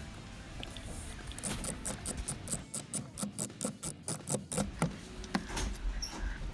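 Ratchet wrench clicking in a quick, even run of about four or five clicks a second for a few seconds, typical of loosening a bolt under the steering column.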